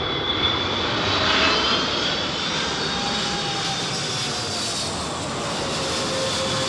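Boeing 777 airliner's jet engines on final approach, a steady roar with whining tones that slowly fall in pitch as the aircraft passes.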